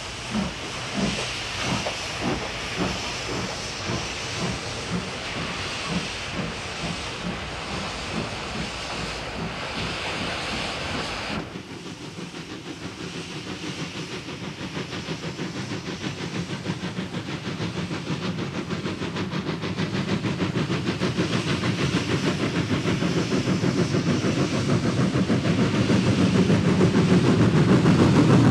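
Large steam locomotive pulling away with slow, even exhaust chuffs, about one and a half a second, over hissing steam. About eleven seconds in the sound changes to a faster, steadier chuffing and running noise that grows louder as a locomotive comes closer.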